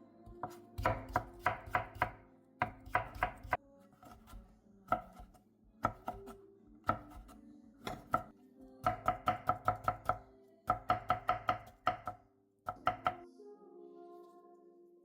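Knife chopping food on a cutting board in quick runs of sharp, even strokes, about five or six a second, with short pauses between runs; the chopping stops near the end.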